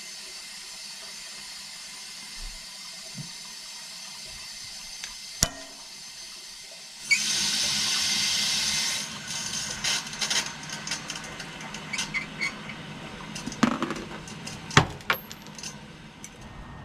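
Freshly soldered copper water pipe being cooled and wiped with a wet rag: a sudden loud hiss of steam for about two seconds partway through, then light clinks and knocks of hands and rag on the copper pipe and fittings.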